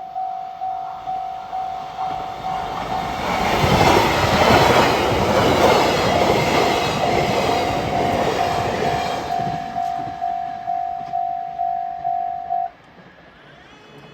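Level-crossing warning bell ringing in a steady two-tone-a-second pulse while a train passes over the crossing, the train's noise building to its loudest about four to six seconds in and fading; the bell cuts off suddenly near the end once the train has cleared.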